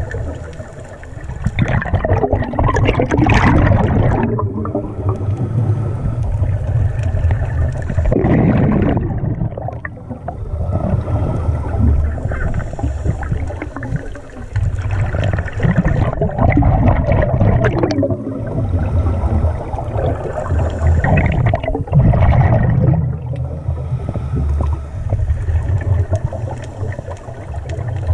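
Scuba diver breathing through a regulator underwater: exhaled bubbles gurgling in about four long surges a few seconds apart, over a steady low rumble.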